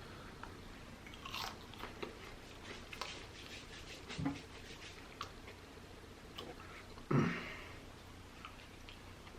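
A person chewing and biting food close to the microphone, with small wet clicks and soft crunches; a louder low sound comes about seven seconds in.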